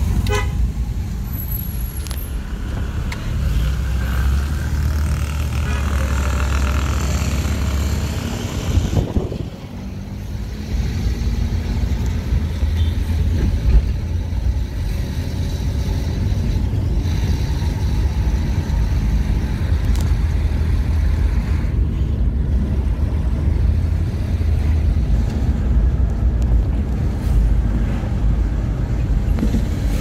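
Car engine and tyre rumble heard from inside the cabin while driving along a road, steady except for a brief dip about a third of the way through.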